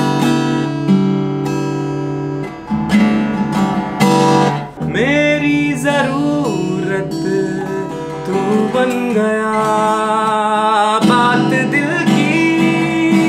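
Acoustic guitar being strummed in sustained chords, with a man's voice singing along from about five seconds in.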